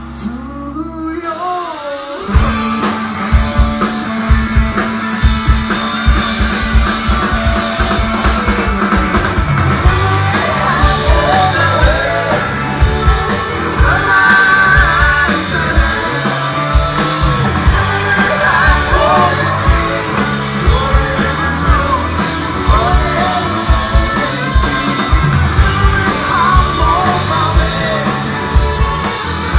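Live rock band playing loud: a fading held chord, then electric guitars, bass and drums crash back in together about two seconds in and keep a driving beat, with a bending melody line over the top.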